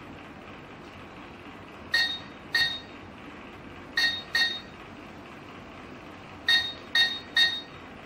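Touch keypad of a zinc-alloy Bluetooth smart glass door lock beeping as a seven-digit temporary password is keyed in. There are seven short beeps, one per key press, in uneven groups of two, two and three, starting about two seconds in.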